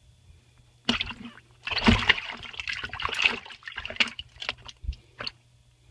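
Water splashing and sloshing in a shallow plastic tub as a giant African bullfrog thrashes while swallowing a rat. It starts suddenly about a second in, is heaviest for the next few seconds, then trails off into a few scattered splashes.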